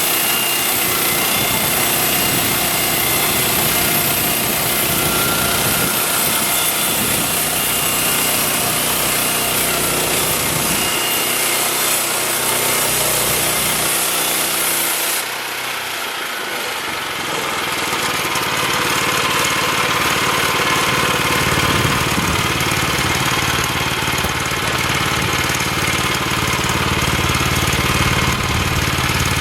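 Gasoline engine of a Woodland Mills portable bandsaw sawmill running steadily, with a high hiss over it. About halfway through the hiss stops and the sound dips briefly, then the engine runs on with a deeper, fuller tone.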